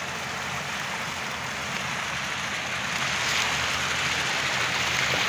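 Stream water rushing and splashing down over rocks in a small cascade, a steady hiss that grows louder toward the end.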